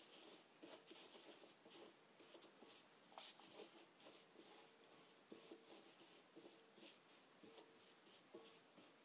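Faint scratchy rubbing of gloved fingers mixing dry bath-bomb powder in a glass bowl, with a short spritz of water from a pump spray bottle about three seconds in.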